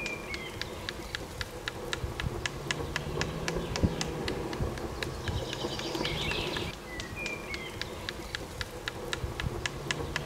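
Birds chirping over a steady, rapid ticking of about three or four clicks a second, with a low steady hum beneath.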